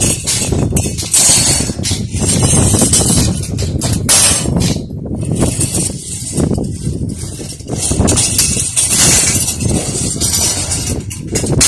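Wind buffeting the microphone: a loud, irregular rumble that swells and drops in gusts.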